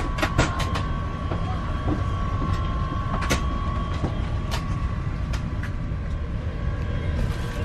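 Steady cabin noise of an Airbus A350 airliner: a low rumble with a constant hum. Over it come short crinkles of plastic wrapping as the packaged slippers are handled, a cluster in the first second and a few more later.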